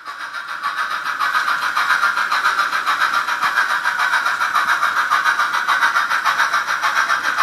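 S-gauge model of a B&O EM1 steam locomotive running on the layout track, a steady fast rhythmic sound of about four to five beats a second that builds up over the first second or so.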